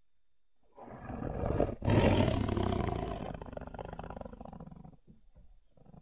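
Big-cat roar used as a sabre-toothed cat (Smilodon) sound effect. It builds from about a second in, breaks off briefly, then comes in loudest as a full roar that fades away over the next few seconds. A fainter call starts near the end.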